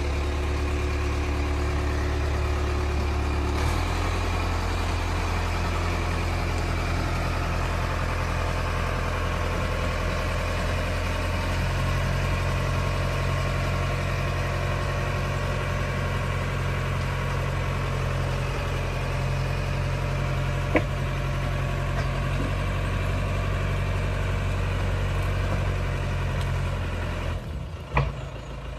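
Engine running at a steady idle, its note shifting slightly a couple of times, then fading away with a knock near the end.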